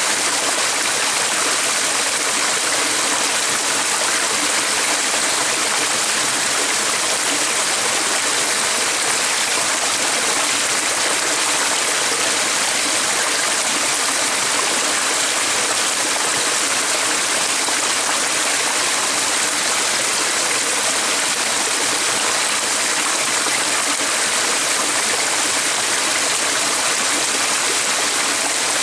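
Flowing stream water making a steady, even rushing hiss that holds constant throughout.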